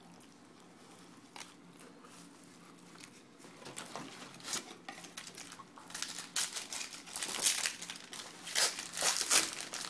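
2010 Panini Prestige basketball card pack wrapper crinkling and tearing as it is opened by hand, in irregular bursts that begin about four seconds in and grow louder toward the end.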